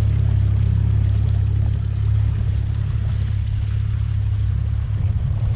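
40 hp outboard motor running steadily at trolling speed, a low, even rumble.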